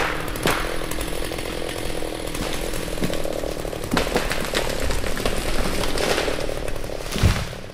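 A small engine running with a steady rasping buzz, with a few sharp clicks and a louder low thump near the end.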